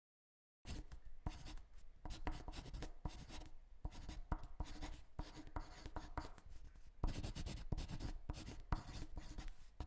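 Coloured pencil scratching across paper in quick, irregular strokes as outlines and details are drawn, starting about half a second in.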